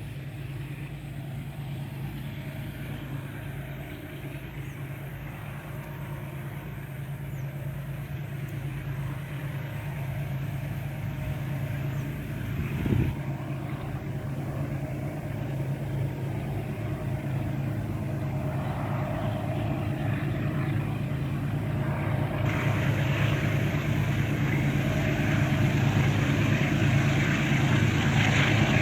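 GE U20C diesel-electric locomotives with 12-cylinder engines running under heavy load as a loaded grain train climbs a steep grade, a steady low engine drone growing gradually louder as they approach. A brief louder sound stands out about halfway through.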